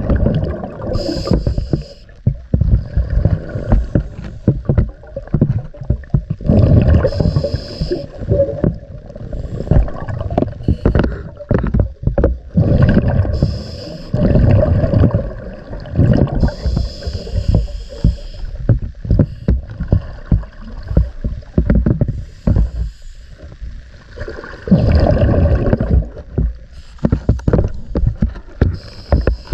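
Scuba diver breathing underwater through a regulator: loud bubbling rumbles of exhaled air that come and go every few seconds, with a thin hiss in between.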